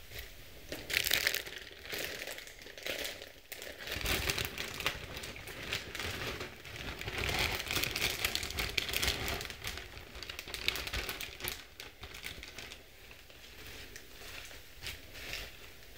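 Crinkly plastic salad packaging handled in irregular bursts, a clear plastic clamshell and then a plastic salad-kit bag, with leafy greens and shredded lettuce rustling as they are pulled out and tipped onto a tray.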